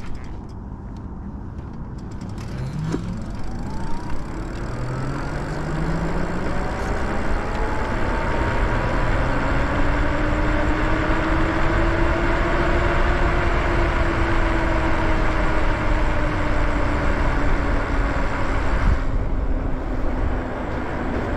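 Lyric Graffiti ebike under way: a whine that climbs in pitch as it speeds up, peaks about halfway through and then eases slightly lower. Wind rush on the microphone grows louder with the speed.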